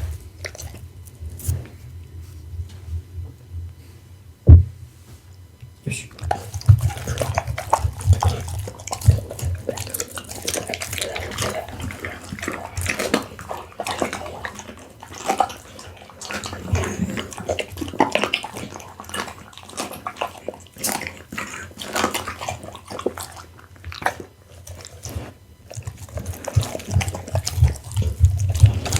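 A pit bull eating raw food, chewing with a steady stream of irregular smacks and clicks. It is quiet for the first few seconds except for one sharp knock about four and a half seconds in.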